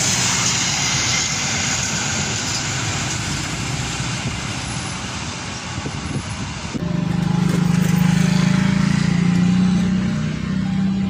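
Passenger train running through a station without stopping: the even rush of steel wheels on rails as the last coaches and the power car go by. About seven seconds in, the sound changes abruptly to a steady low hum.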